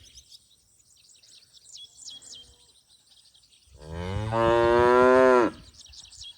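A cow mooing once, a single loud call of nearly two seconds starting about four seconds in, its pitch rising slightly and then dropping as it stops.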